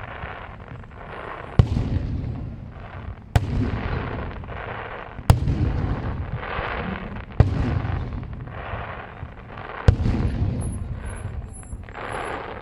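Aerial firework shells bursting: five sharp bangs about two seconds apart, each followed by a long rumbling tail, with a further rumbling burst near the end.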